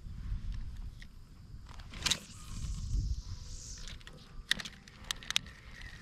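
Uneven low rumble of wind on the microphone. About two seconds in come a sharp click and a brief hiss lasting a second or two, then a few more sharp clicks near the end.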